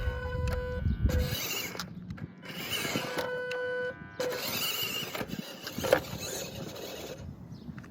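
Small electric RC trucks' motors and gearboxes whining in on-off bursts as they are driven, with clattering and knocks from the wheels on the ground.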